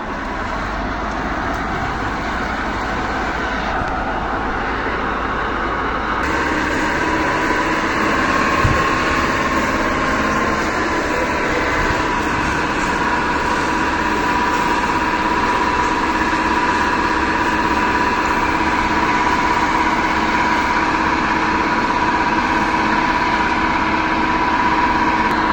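Fire truck engine and water pump running steadily under a loud even hiss, with a steady whine coming in about a quarter of the way through.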